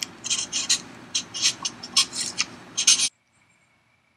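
Pen or marker scribbling on paper in quick, irregular scratchy strokes, stopping abruptly about three seconds in.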